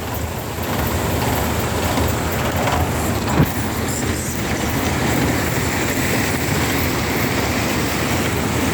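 Heavy floodwater rushing in a steady roar of noise, with a single short knock about three and a half seconds in.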